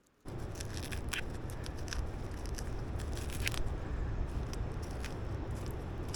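A steady low rumble of outdoor noise that starts abruptly a moment in, with scattered sharp clicks and crackles over it from flint-and-steel fire-lighting and handling of dry tinder.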